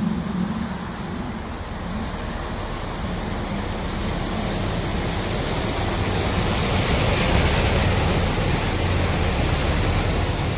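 DAF articulated lorry ploughing through deep flood water, its wheels throwing up a heavy splash and bow wave. The rushing wash builds to its loudest as the cab passes, about seven seconds in, over a low engine drone.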